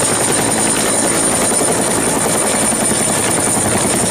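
Helicopter rotor sound effect: a steady, fast chopping over a high whine.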